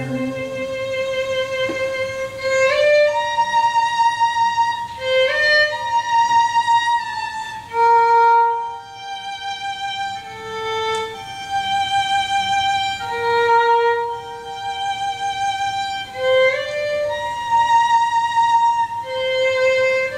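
Music played back from a Scotch Scream'R Type I normal-bias cassette: a slow melody of long held notes that step and glide from one pitch to the next.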